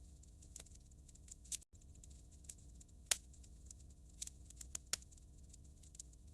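Wood fire crackling in a fireplace: small irregular pops and snaps, with a louder pop about three seconds in and another near five seconds.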